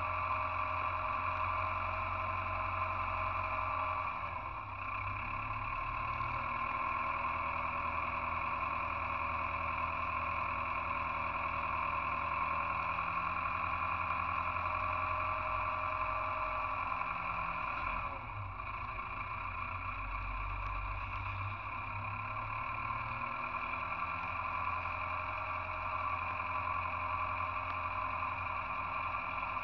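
Tractor engine running steadily as the tractor drives, with two brief dips in loudness, about four seconds in and again near the middle.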